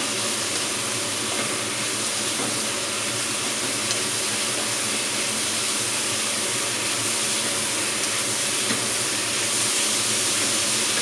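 Naem (fermented sour pork) sizzling steadily in hot oil as it stir-fries in a pan, with a few faint clicks.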